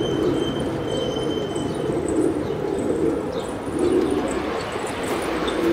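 Domestic pigeons cooing: low, rolling coos repeating every second or so.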